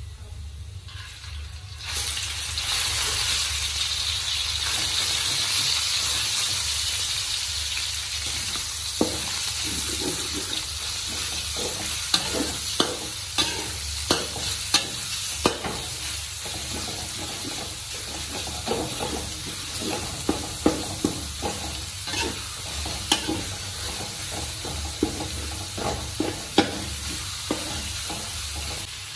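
Minced pork and garlic sizzling in hot oil in a steel wok. The sizzle suddenly grows loud about two seconds in as the pork goes in. From there on, a metal spatula scrapes and clinks against the wok in quick strokes as the meat is stir-fried.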